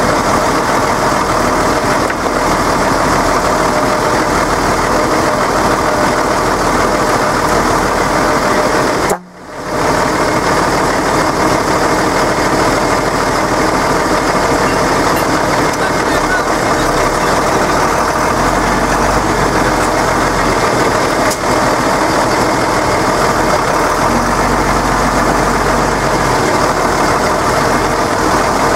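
Deutz-Fahr tractor's diesel engine running steadily close by. The sound drops out for a moment about nine seconds in.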